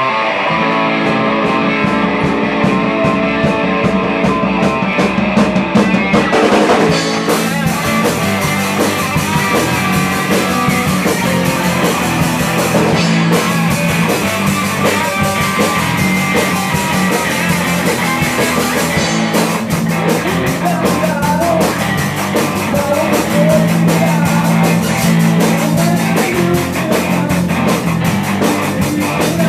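Live rock band playing: electric guitars and bass over a drum kit. The drums start with light, evenly spaced cymbal ticks, and the full kit with crashing cymbals comes in about seven seconds in.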